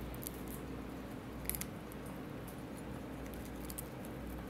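A cockatiel pecking at popcorn on a computer keyboard, making scattered small clicks and crunches, with a short cluster about one and a half seconds in, over a steady low hum.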